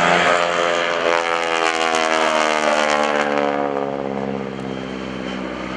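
North American SNJ-5 Texan's Pratt & Whitney R-1340 Wasp radial engine and propeller passing by in a flyby. Its drone drops steadily in pitch as the plane goes past, then fades in the last couple of seconds.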